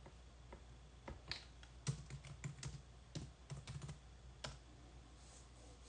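Typing on a computer keyboard: a run of faint, irregularly spaced key clicks, about a dozen, from about a second in until past the middle.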